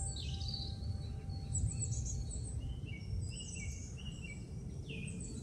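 Woodland birdsong: several birds singing and chirping in overlapping short phrases, over a steady low rumble.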